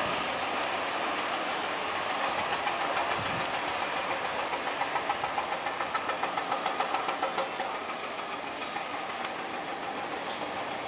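Antonov An-12's four Ivchenko AI-20 turboprop engines running as the aircraft turns on the runway, a steady propeller drone with a high turbine whine. Between about two and eight seconds in, the drone throbs in an even beat of about four pulses a second, the propellers falling in and out of step.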